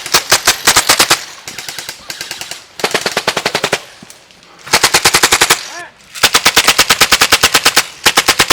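Airsoft rifles firing on full auto in repeated bursts of rapid clicking shots, about ten a second, with the longest burst running over two seconds near the end.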